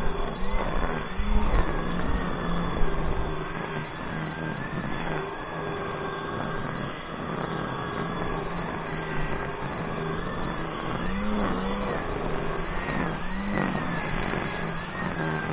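Small motor of a grass mower running steadily as it cuts the lawn, its pitch wavering slightly up and down.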